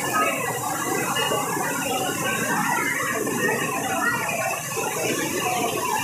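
Heavy rain falling steadily, a dense crackling patter, with the voices of a crowd mixed in.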